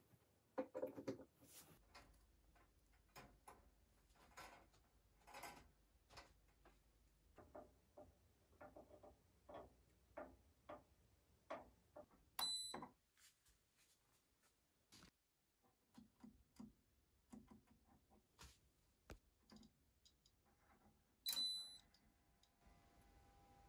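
Faint handling sounds as a toaster and kitchen things are moved and set down: scattered light knocks, clicks and rustles at irregular intervals, with two short high beeps, about twelve and twenty-one seconds in.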